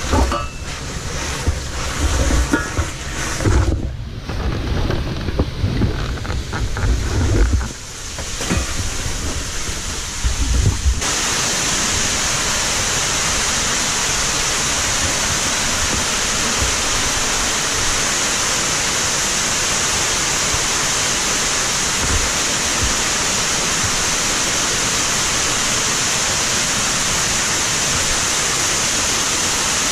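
Cave stream in flood pouring down the entrance series. For the first eleven seconds uneven low knocks and rumble as the caver climbs down, then a loud, steady rush of falling water.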